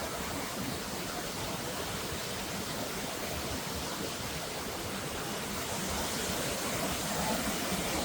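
Waterfall rushing: a steady, even roar of falling water that grows a little louder over the last couple of seconds.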